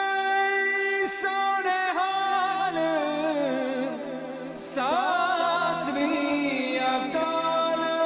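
Music of long, held sung vocal notes that glide up and down between pitches, with a steady low drone coming in about two seconds in.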